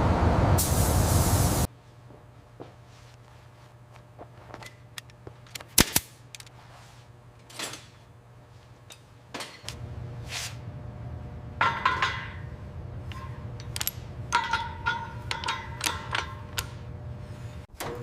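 A loud hissing spray cuts off abruptly under two seconds in. After it come scattered sharp clicks, knocks and short metallic rings of hand work on metal parts, with a low steady hum joining about halfway through.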